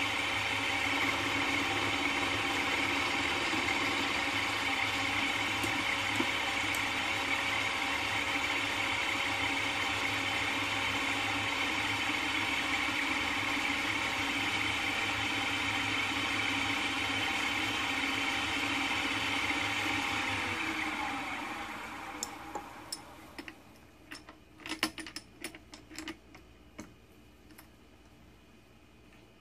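Milling machine spindle running steadily with an end mill turning, then switched off about twenty seconds in and spinning down, its pitch falling. A series of sharp clicks and light knocks follows near the end.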